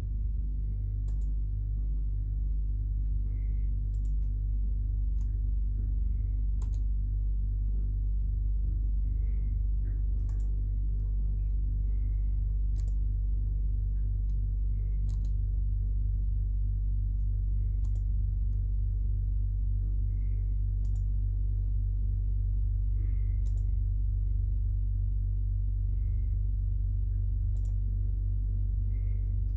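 A loud, steady low electrical hum starts abruptly at the beginning, with scattered sharp computer-mouse clicks over it every second or two.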